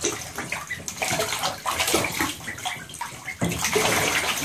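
Bathtub water splashing and sloshing as a group of ducklings swim and bathe in it, in irregular splashes that grow busier near the end.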